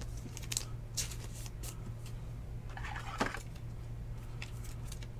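Faint rustling and a few light clicks of a clear plastic card sleeve and a rigid plastic top loader being handled as a trading card is put into them, over a steady low hum.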